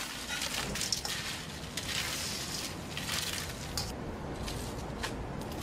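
Popcorn being stirred and scooped with a ladle in a steel bowl of liquid nitrogen, making repeated bursts of crisp rustling and crunching about once a second.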